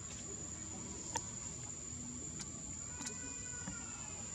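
Steady high-pitched drone of forest insects, broken by a few sharp clicks, the loudest about a second in.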